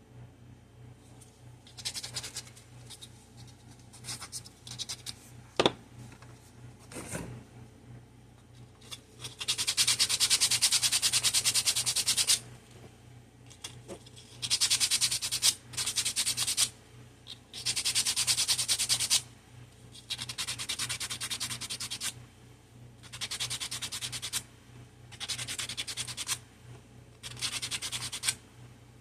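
Sandpaper rubbing across the bottom of a tic-tac-toe board, in repeated spells of quick scratchy strokes a few seconds long, with a couple of knocks early on.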